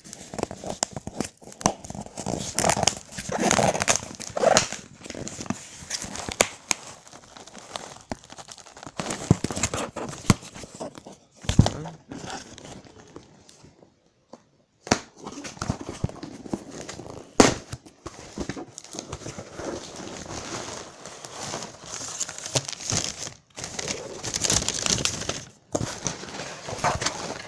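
Hands opening a cardboard shipping box and handling the packaging: steady rustling and crinkling with a few sharp clicks, and a brief pause about halfway through.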